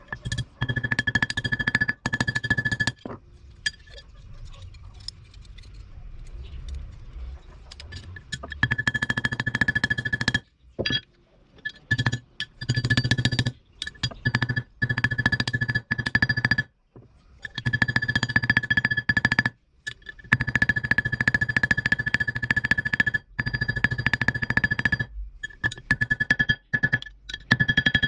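Small hammer tapping rapidly to peen a pin through a knife's tang on a steel plate, the plate ringing with a steady high tone. The taps come in several runs broken by short pauses, with a softer stretch a few seconds in.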